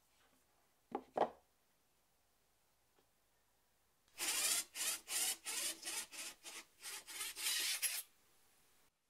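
Two short wooden knocks about a second in, from boards handled on a workbench. From about four seconds in, some twelve quick back-and-forth strokes of a hand tool working wood, about three a second, stopping about eight seconds in.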